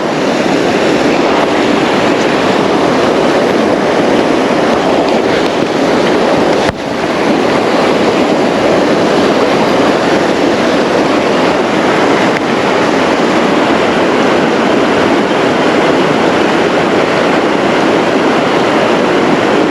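Loud, steady rush of fast-flowing river water, with a short dip about seven seconds in.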